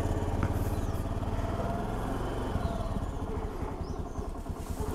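Honda Navi's single-cylinder four-stroke engine idling steadily, freshly kick-started after about a year in storage with a flat battery, and left running to recharge it.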